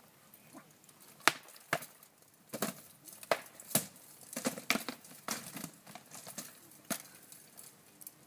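Rattan swords striking wooden shields and armour in SCA heavy combat: a quick, uneven run of about nine sharp wooden clacks and knocks, the loudest a little over a second in and most packed together in the middle.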